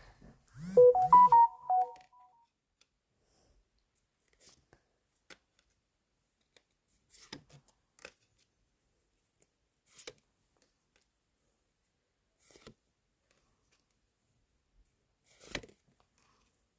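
A short electronic jingle of a few stepped beeping notes about a second in. After it come sparse faint clicks and taps from handling trading cards and pack wrappers, with one louder tap near the end.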